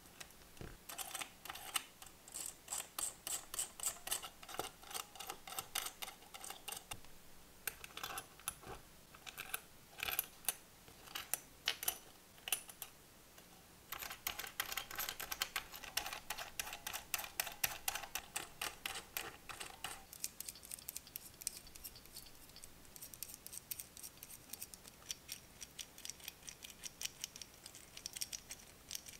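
Small metal valve springs, valves and bucket tappets clicking and tapping against a metal model-engine cylinder head as they are fitted by hand. Dense runs of rapid clicks with two short pauses, thinning to scattered, quieter clicks in the last third.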